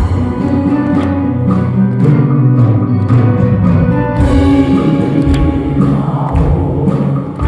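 Live band music with many voices singing together over a steady drum beat.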